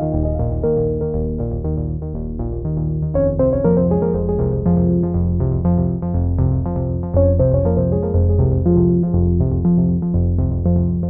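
Background music: synthesizer keyboard playing quick, evenly repeated notes over a bass line, filling out with higher notes about three seconds in.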